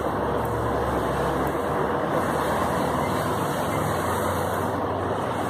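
Steady outdoor street noise: an even hiss over a low rumble, with no distinct events.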